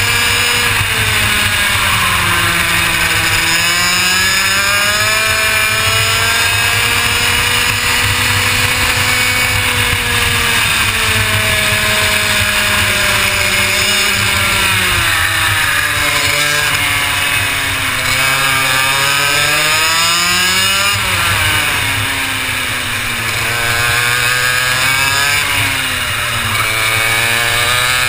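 Two-stroke kart engine heard onboard at racing speed, its pitch climbing on the straights and dropping under braking into corners, several times over.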